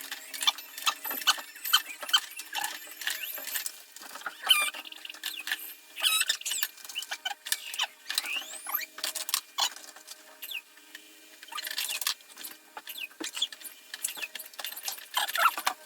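Toys being handled and knocked about: many quick clicks and rattles with short, high squeaks.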